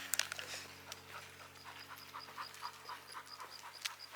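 Dog panting quickly and evenly, about four breaths a second, with a faint high-pitched ticking in the background.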